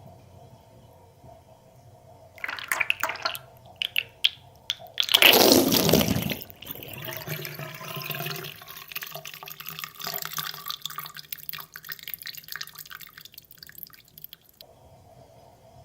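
Water draining down a bath or sink plughole. A few splashes come first, then a loud rushing gush about five seconds in, settling into a steady gurgling flow that cuts off near the end.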